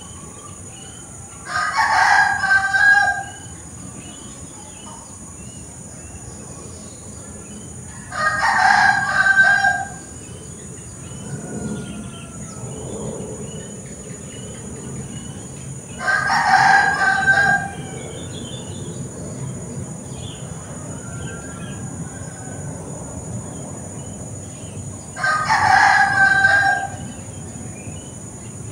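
A rooster crowing four times, each crow about a second and a half long and roughly eight seconds apart. Faint bird chirps and a steady high hum run between the crows.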